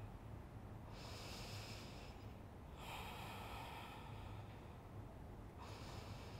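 A woman breathing slowly and deeply through her nose: three faint, long breaths about two seconds apart, the steady breathing of a held yoga stretch.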